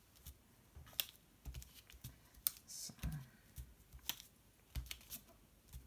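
Light, irregular clicks and taps of fingernails picking small square foam adhesive pads off their backing sheet and pressing them onto card, with a faint rustle of the sheet.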